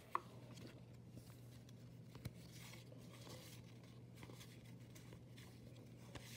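Faint clicks and rustles of cardboard baseball cards being handled and leafed through by hand, with a sharper click just after the start and another a little after two seconds in, over a low steady hum.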